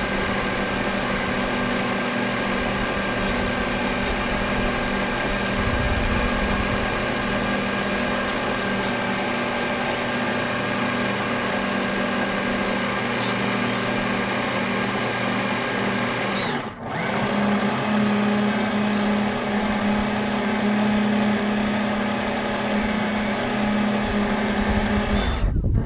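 Electric motor of a radio-controlled model boat running steadily, a constant mechanical whine. It cuts out for a moment about two-thirds of the way in and again just before the end, picking up again each time.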